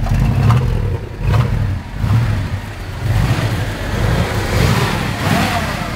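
1978 Dodge Power Wagon's engine through glasspack mufflers, revved in repeated blips, its exhaust rumble swelling and falling back about once a second.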